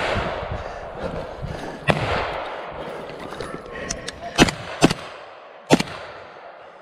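Rifle shots fired singly, about five at uneven intervals, the loudest about four and a half seconds in. The first two ring on with a long echo through the pine forest.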